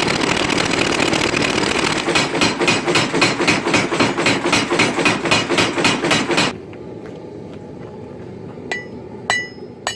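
A homemade power hammer pounds a hot Damascus billet in a fast, even run of blows, about four a second, drawing it out. It stops abruptly about six and a half seconds in. Near the end come a few single hand-hammer blows that ring on the anvil.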